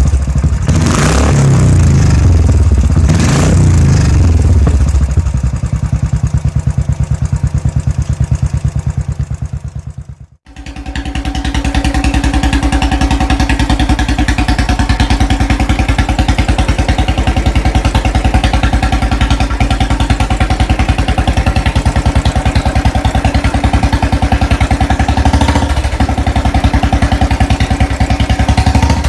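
Royal Enfield motorcycle exhaust through an aftermarket silencer: the engine is blipped twice, then settles to an idle. After a sudden break about ten seconds in, a second one idles with a fast, even thump.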